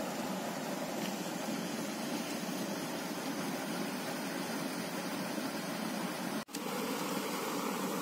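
Steady rushing of river water spilling over a small concrete weir, with a momentary break about six and a half seconds in.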